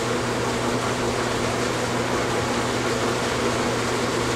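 Steady mechanical hum with an even hiss, the room noise of a running fan-type machine.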